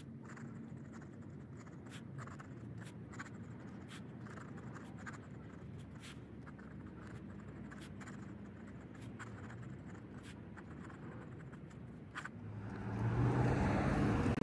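Fountain pen nib scratching across paper as a line of handwriting is written, with faint clicks here and there as the nib touches down. About twelve seconds in, this gives way to a much louder vehicle engine.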